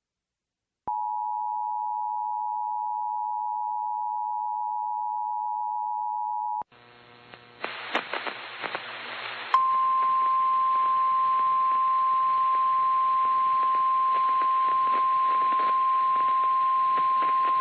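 Emergency Alert System attention signal for a tornado warning: a steady dual tone holds for about six seconds and cuts off. Radio hiss with hum and a few crackles follows. About three seconds later a single steady, slightly higher alert tone starts and holds over the hiss, the NOAA Weather Radio warning alarm.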